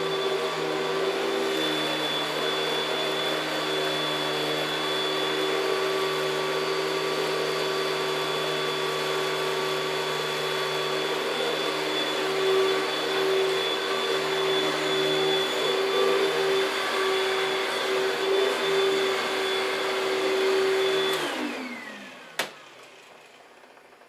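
Panasonic Jet-Flo MC-6217 upright vacuum cleaner running steadily with a steady whine, then switched off about three-quarters of the way through, its motor winding down with falling pitch. A single sharp click follows shortly after.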